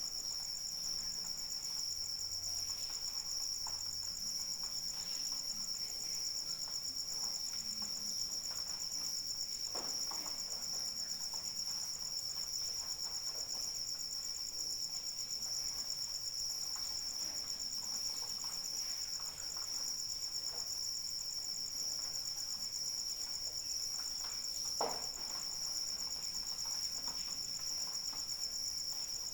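Crickets chirring in a steady, unbroken high-pitched chorus, with occasional faint ticks and one sharper click near the end.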